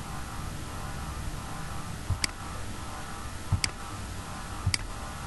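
Three short, sharp computer mouse clicks about a second apart, over a steady low hum and hiss.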